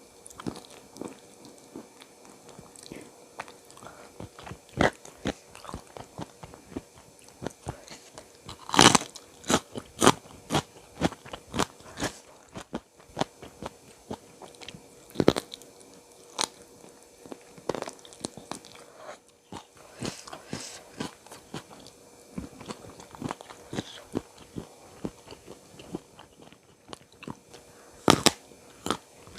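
A person eating close to the microphone: repeated crunching bites and chewing, with the loudest crunches about nine seconds in and again near the end.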